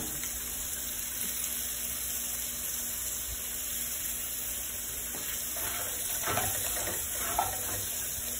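Chunks of fish searing in olive oil and vegan butter in frying pans, a steady sizzle. A few light knocks of a utensil against the pan come near the end as the pieces are turned.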